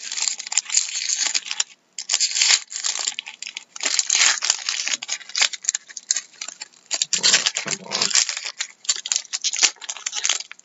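Foil wrapper of a trading card pack being torn open and crinkled by hand: dense crackling in bursts, with two short pauses.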